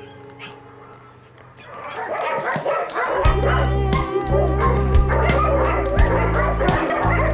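Puppies yapping and whimpering over background music, which gets much louder about three seconds in with a deep bass and a steady beat.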